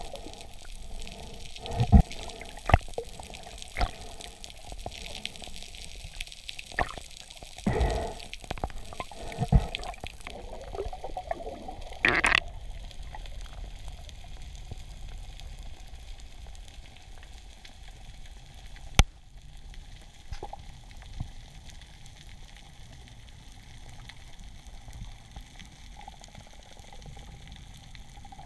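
Underwater sound: a steady muffled wash of water with scattered short knocks and clicks, most of them in the first half, and one sharp click about 19 seconds in.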